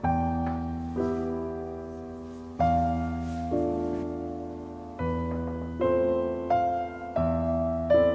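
Slow piano music: notes and chords struck about every second or two, each left to ring and fade.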